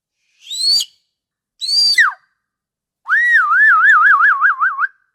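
Orca (killer whale) whistles and calls: a short rising whistle, then a call that slides steeply down in pitch, then a longer warbling whistle that wavers up and down about five times a second.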